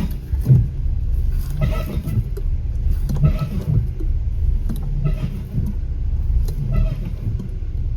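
A car moving with a low rumble, with several creaks and knocks at irregular intervals from the suspension's rubber bushings (silent blocks). The bushings are strained because the suspension was tightened in the wrong position after lowered springs were fitted.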